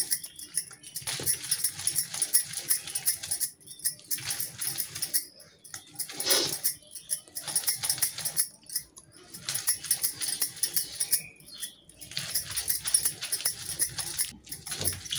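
Stone roller (batta) rubbed back and forth on a flat grinding stone (sil), crushing garlic, coriander leaves and green chilies into a wet paste. It makes a rhythmic gritty scraping, with brief pauses every few seconds between runs of strokes.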